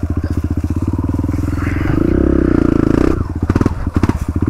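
Dirt bike engine running at low revs, its firing pulses coming evenly, with the note shifting slightly about two seconds in. A few irregular knocks and clatters near the end.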